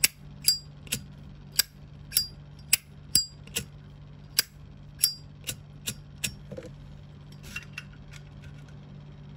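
Zippo lighter's hinged metal lid being flicked open and snapped shut over and over: a run of sharp metallic clinks with a short ringing tail, about two a second, thinning out after about six seconds into a few faint ticks. A steady low hum lies underneath.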